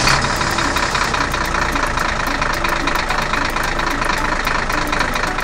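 Truck engine idling, with a fast, even knocking rattle.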